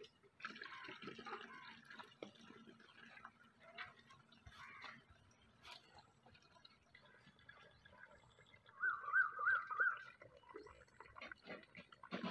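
An animal calling: a quick run of about five high, rising-and-falling chirps lasting about a second, near the end, over faint scattered chirps and clicks.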